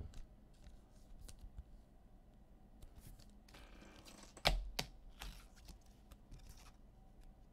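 Light handling noises on a tabletop: scattered small clicks and taps, a soft rustle about three and a half seconds in, then a sharper knock just after, as trading cards and their packaging are handled.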